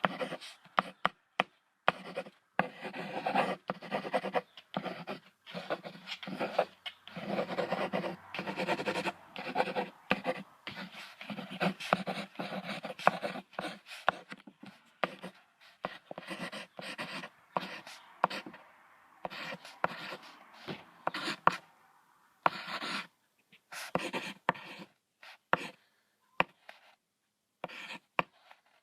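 Deer vocalizing: a run of irregular breathy calls broken by short, sharp clicks.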